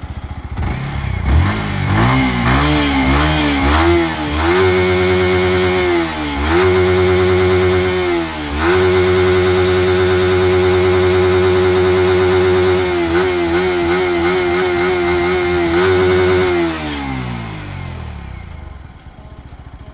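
Yamaha R15's single-cylinder engine revved hard on a standing bike: a few quick throttle blips, then held at high revs for long stretches with two brief dips and a wavering patch, before falling back to idle near the end.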